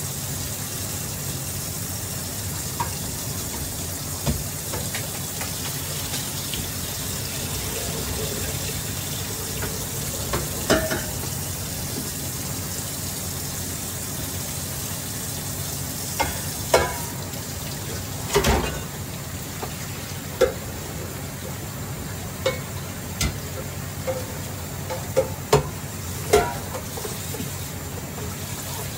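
Pork and chicken adobo sizzling in a pan as a steady hiss, with scattered sharp knocks as it is stirred, most of them in the second half.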